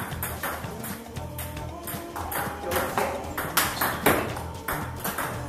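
Table tennis ball clicking sharply off rackets and the table in a run of hard forehand and backhand drives against pushed backspin balls, about one or two clicks a second, over background music.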